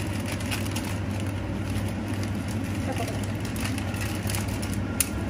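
Induction cooktop running with a steady low hum under a pot of water. Light crackles and taps come as dry instant-noodle blocks are handled and dropped into the pot, with one sharp click about five seconds in.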